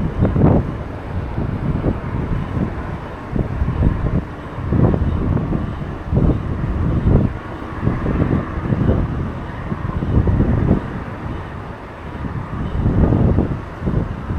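Strong wind buffeting the microphone in uneven gusts, a low rumble that swells and fades every second or so.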